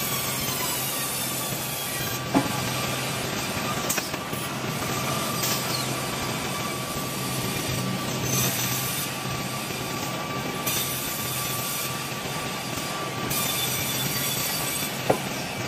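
Vertical band sawmill running: a steady whine from the band saw over motor hum and the running of the log carriage along its rails. Two sharp clanks, about two seconds in and again near the end.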